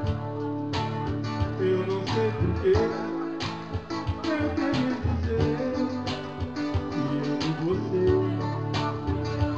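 Live band music: a guitar-led instrumental passage over a steady beat, with a melody line moving in pitch.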